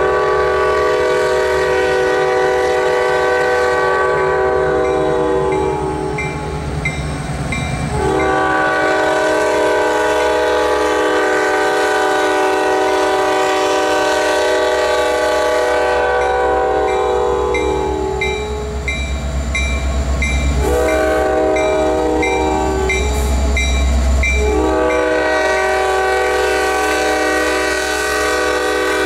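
Nathan K5LA five-chime air horn on a Norfolk Southern EMD SD70 diesel locomotive, sounded long, long, short, long, the standard grade-crossing signal. The locomotive's diesel engine rumbles underneath as the train approaches.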